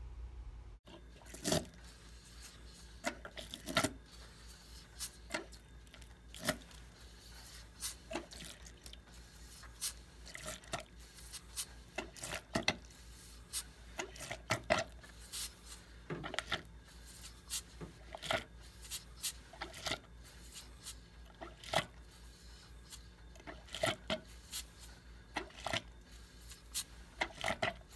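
Brass push-pull hand pump being worked by hand on a heating-oil line, drawing oil and air out of the line and squirting it through its outlet tube into a cup of frothy oil. Irregular sharp clicks and squirts come about one or two a second as the pump clears sludge from the line.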